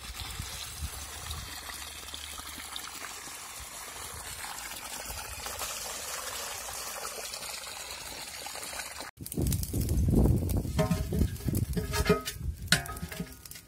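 Water running steadily from a hose into a basin of freshly dug sweet potatoes. After a cut about nine seconds in, a louder low rumble follows, with a few short pitched sounds.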